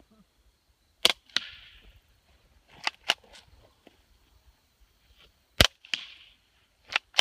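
Suppressed .22 rimfire shots through a Liberty Regulator suppressor: a handful of sharp, short cracks spread unevenly over several seconds, some followed by a smaller click, with the loudest about a second in, about five and a half seconds in and at the very end.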